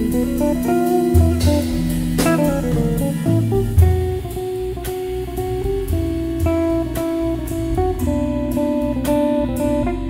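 Jazz organ trio playing live: a Godin hollow-body electric guitar picks a melodic solo line over a Hammond organ's bass line and drums.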